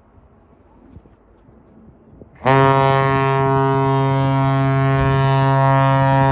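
Great Lakes freighter James R. Barker's deep ship's horn sounding one long blast. It starts suddenly about two and a half seconds in, after a quiet stretch, and holds steady and loud.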